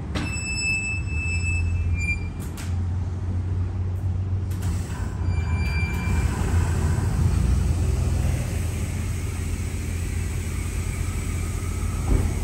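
Steady low mechanical rumble with some hiss, the kind a running vehicle or large machine makes.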